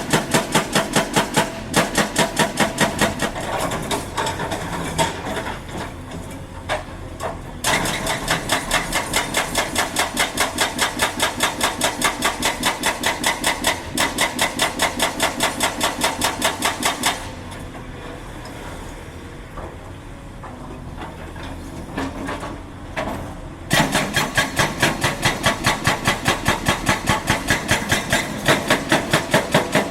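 Rapid, evenly spaced hammering impacts, several a second, over a running engine at a heavy-machinery worksite. The hammering fades about a quarter of the way in, stops for several seconds past the middle while only the engine runs, then starts again.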